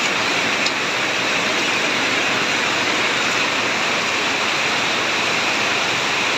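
Heavy rain falling steadily, with runoff pouring down off the roof eaves; one brief tick a little under a second in.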